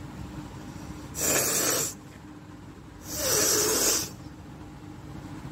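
A person forcing air hard through the nose twice: a short blast about a second in and a slightly longer one about three seconds in.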